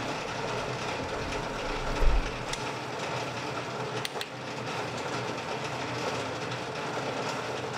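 Logan 11 x 36 metal lathe running, its gear train and belt drive whirring and clattering steadily. A low thump comes about two seconds in and a sharp click about four seconds in, as the carriage handwheel and apron levers are worked.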